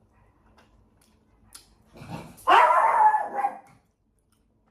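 A dog barks and whines once, a drawn-out pitched cry starting about two seconds in and lasting well over a second, louder than the nearby speech.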